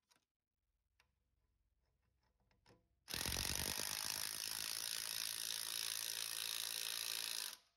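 Cordless power wrench running on an exhaust clamp bolt through a long extension, tightening the clamp on the catalytic converter's anti-theft strap. It starts about three seconds in after a few faint clicks, runs for about four and a half seconds with a lower hum joining partway through, and cuts off suddenly.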